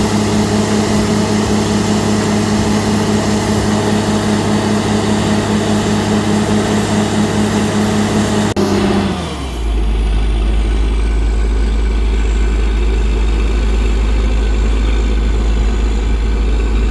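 Heavy engine running steadily. About nine seconds in, the sound switches abruptly to a steady, much deeper drone.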